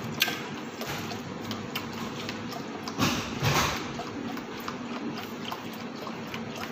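Fish sauce poured in a steady stream into a stainless steel bowl, splashing and filling, with a louder gush about three seconds in.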